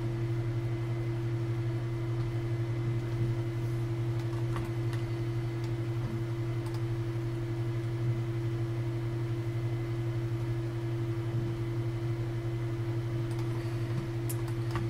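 Steady low electrical hum with a second, higher tone above it, and a few faint clicks here and there.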